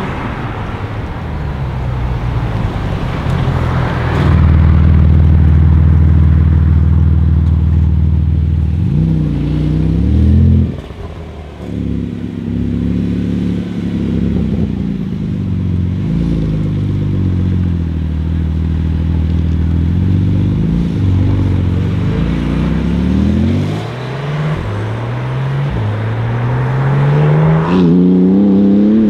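Porsche 991 GT2 RS's twin-turbo 3.8-litre flat-six, loud throughout. It holds a steady note for several seconds early on, runs at lower, wavering revs through the middle, and its pitch climbs steadily under acceleration near the end.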